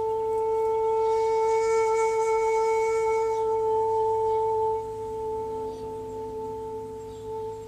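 Shakuhachi (Japanese end-blown bamboo flute) holding one long, steady note with audible breath. The note grows softer about five seconds in and is still sounding at the end.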